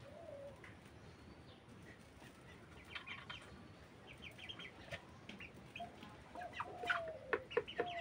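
Broiler chickens calling softly: a drawn-out falling call near the start and again near the end, and a run of short, quick clucks that builds up and gets louder over the second half.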